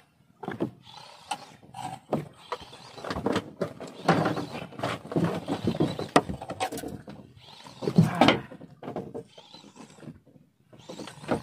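Fishing reel being cranked hard against a hooked fish on a bent jigging rod, with clicks and rattles from the reel and boat. The angler strains and grunts with effort, loudest about four seconds in and again near eight seconds.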